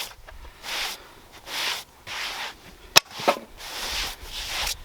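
A series of short scraping or rubbing strokes, a bit more than one a second, with one sharp click about three seconds in; no chainsaw running.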